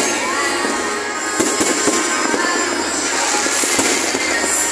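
Aerial firework shells bursting, with a couple of sharp bangs, over loud, continuous music.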